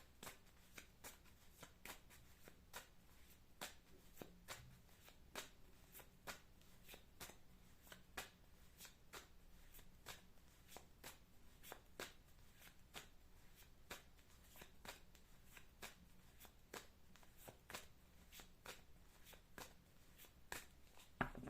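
A tarot deck being shuffled by hand: faint, quick card clicks, about two or three a second.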